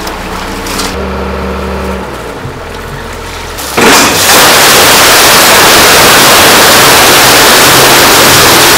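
A motor runs with a steady hum; then about four seconds in, a sudden loud rush of water as the truck's tank is opened and water and mullet gush out onto the concrete, pouring on without letup.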